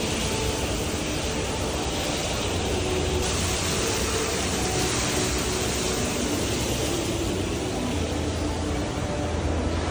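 Steady rushing background noise, with faint scattered tones underneath.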